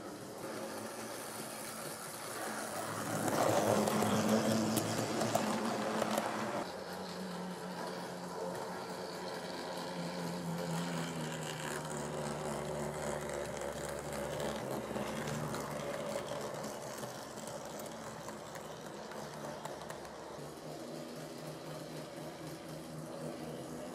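A locomotive running, a steady mechanical drone that grows louder for a few seconds near the start, then settles and shifts a little in pitch.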